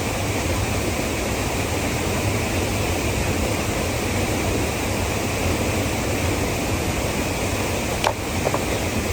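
Waterfall rushing steadily, with a short knock about eight seconds in.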